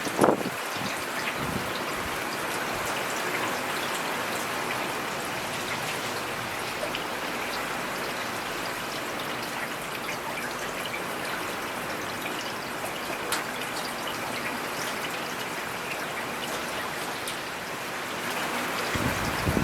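Steady rain falling in a forest, an even hiss of rainfall with scattered individual drops ticking close by. A brief louder low thud comes right at the start.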